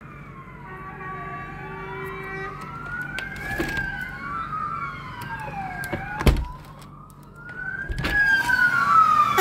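Fire engine sirens wailing in slow rising and falling sweeps, growing louder as the trucks approach. A single sharp knock about six seconds in.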